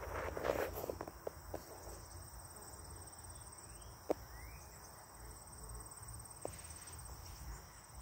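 Steady high-pitched trilling of insects such as crickets, with rustling steps through vegetation in the first second and a few soft clicks.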